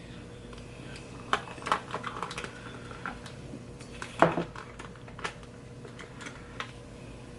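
Small hard objects being picked up and set down on a table: a run of light clicks and clatters, the loudest about four seconds in, over a steady low hum.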